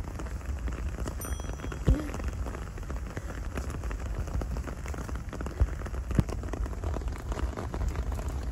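Steady patter of rain, many small drop ticks over an even hiss, with a few sharper knocks, the loudest about two seconds in.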